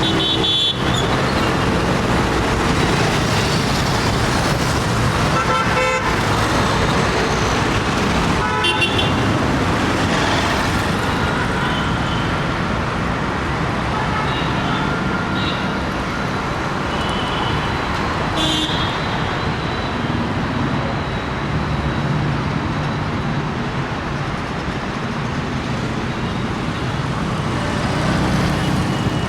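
Busy city road traffic on an Indian road: a steady rush of engines and tyres, with vehicle horns honking in short beeps several times, about a second in, around six and nine seconds, and again between fifteen and nineteen seconds.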